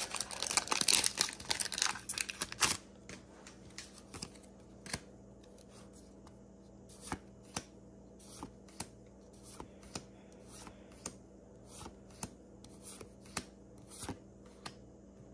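Foil booster pack wrapper crinkling and tearing as it is pulled open for about the first three seconds. Then trading cards are slid one by one off the stack in the hand, each giving a soft click, every second or so.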